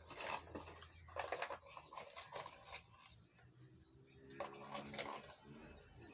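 Light clicks, taps and rustles of a plastic spice box being handled and seasoning sprinkled into an aluminium cooking pot, in a string of short sharp sounds over the first three seconds. A faint low drawn-out call, like an animal's, comes from the background from about four seconds in.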